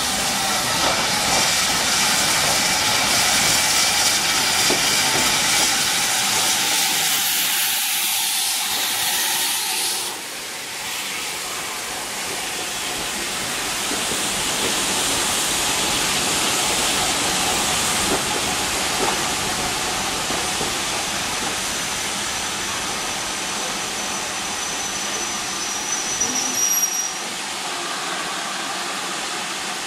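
Steam locomotive (LSWR Adams T3 No. 563) hissing steam, a loud steady hiss that cuts back suddenly about ten seconds in, then slowly builds again.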